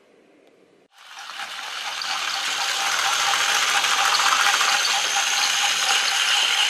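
Battery-powered Trackmaster Percy toy engine running along plastic track, its motor and gears whirring with the wheels clattering. After about a second of near silence the whir comes in, grows over a couple of seconds, then holds steady.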